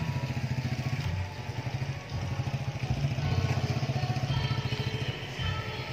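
A small engine running with a rapid, even throb; it dips briefly just after a second in, then grows louder.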